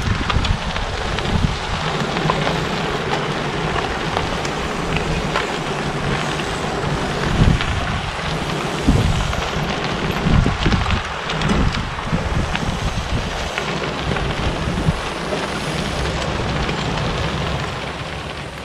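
Gravel bike tyres crunching and hissing on a gravel road as a big pack of riders rolls past, a steady rain-like wash of noise with scattered small stone ticks. Irregular low gusts of wind buffet the microphone.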